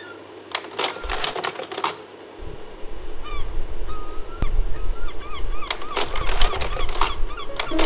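Short, repeated bird-like calls over clusters of rapid sharp clicks, with a low rumble that comes in about two and a half seconds in.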